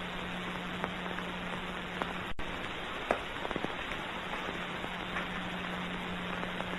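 Steady hiss and scattered crackle of a 1929 early sound-film soundtrack with no dialogue, over a low steady hum, with a brief dropout about two seconds in.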